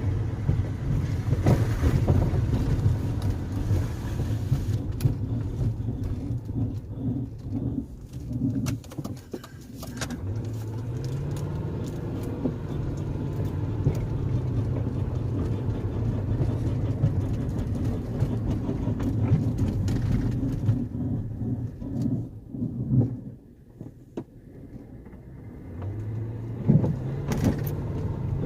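A car being driven: steady engine and road noise. The engine note rises as the car speeds up about ten seconds in and again near the end, with a brief quieter lull shortly before, and a few knocks along the way.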